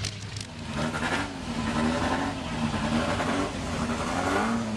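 Piston engine running, its pitch rising and falling over and over, over a steady low hum.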